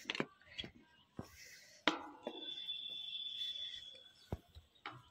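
Footsteps going down a steel staircase with slatted treads: a string of scattered knocks as feet land on the steps. In the middle a high, thin, steady whistle sounds for about a second and a half.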